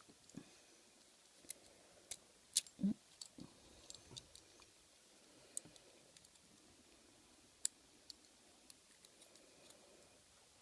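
Lock pick and tension wrench clicking and scraping in a handcuff keyhole while the cuffs are being picked, in scattered irregular sharp clicks, the loudest a couple of seconds in. There are a few brief low hums from the picker.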